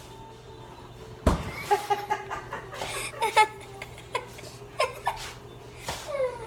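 A loud thump of the phone being handled about a second in, then a person laughing in short bursts close to the microphone, with a few small knocks from the handling.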